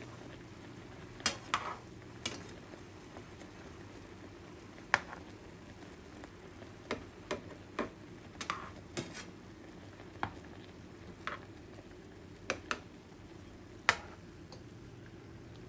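A metal spatula clicks and scrapes against a nonstick frying pan about a dozen times, turning sausages, with the sharpest click near the end. Underneath, the sausages sizzle and bubble steadily in the last of their cooking water as it boils off.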